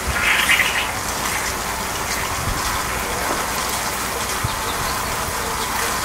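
Honeybee swarm buzzing steadily as the bees are swept off a tree branch with a bee brush, with a short swish of the bristles in the first second.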